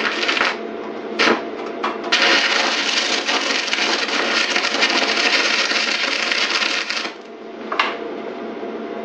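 Electric arc welding in repeated tacks: a few brief arc strikes, then a steady crackling hiss of about five seconds that cuts off suddenly, and one more short strike near the end. The welder is building up weld over a hole in thin sheet, letting it cool between strikes.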